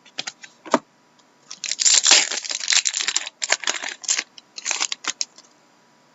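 Trading cards and their foil pack wrapping being handled: a few sharp clicks, then crinkling and rustling from about a second and a half in for nearly four seconds.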